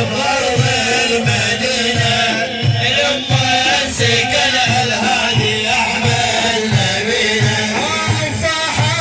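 Music of an Arabic religious praise song (madih): a steady low drum beat, about three beats every two seconds, under a wavering Middle Eastern melody.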